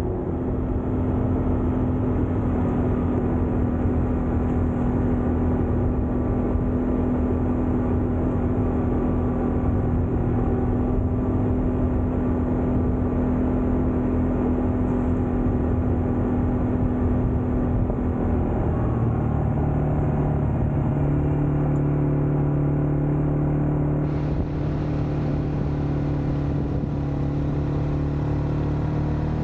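A quad bike engine running steadily while riding. Its note drops to a lower pitch about two-thirds of the way through.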